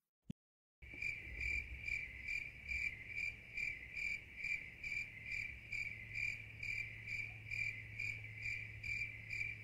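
A cricket chirping steadily in an even rhythm, about three chirps a second, starting about a second in over a low steady hum.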